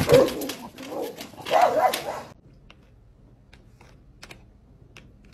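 A dog barking and whining for about two seconds, its calls rising and falling in pitch, then a lull with only a few faint taps.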